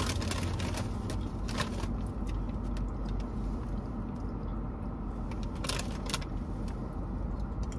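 Steady low rumble inside a car cabin, with a few short crackles from a plastic chip bag being handled.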